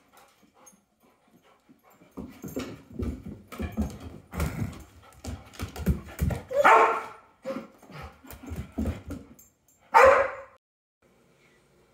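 A puppy yipping and whimpering over a run of low bumps and rustles, with two louder barks about six and a half and ten seconds in.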